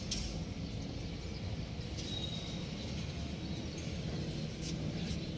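Outdoor background: a steady low rumble with a faint high chirp, like a bird, about two seconds in, and a couple of light clicks.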